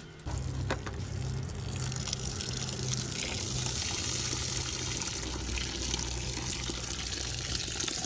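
Water pouring steadily from a pipe into a plastic bucket of sesame seeds as they are washed, starting abruptly a moment in; near the end a hand stirs the wet seeds in the water.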